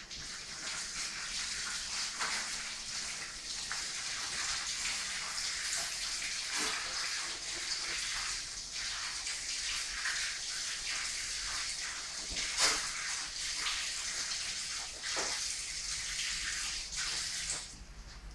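Liquid squirted from a squeeze bottle, hissing and splashing over a snake's wound and running across a stainless-steel table: the wound being washed out. The flow stops about a second before the end.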